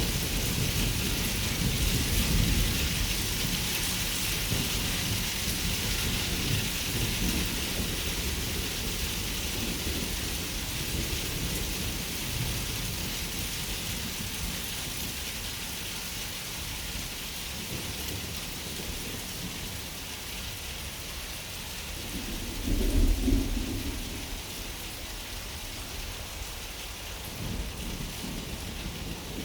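Steady rain with thunder: a low rumble that fades away over the first several seconds, then a short, louder clap of thunder a little past two-thirds of the way through.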